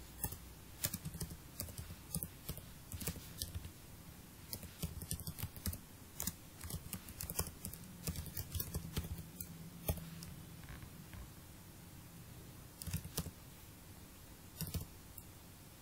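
Typing on a computer keyboard: irregular runs of keystrokes, thinning to a pause after about ten seconds, then a few more keys near the end, over a faint low hum.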